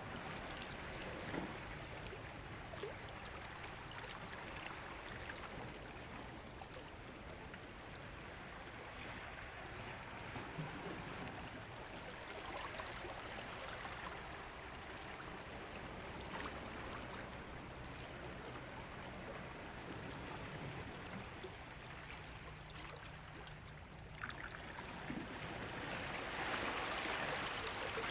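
Gentle ocean water lapping and washing at the shore, with small splashes and crackles; a wave swells in louder near the end.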